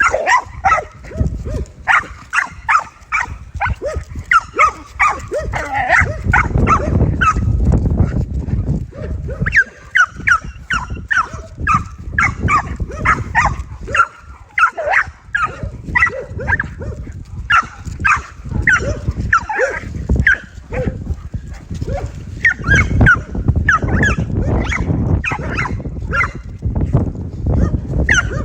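American pit bull terrier barking over and over, about two to three barks a second, with a low rumbling noise underneath in places.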